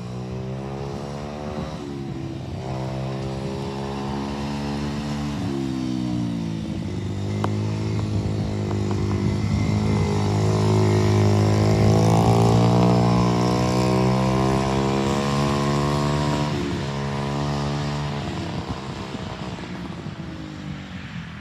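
Four-wheeler (ATV) engine pulling through the gears. Its pitch climbs and then drops at each of several shifts. It grows louder toward the middle, then drops off near the end.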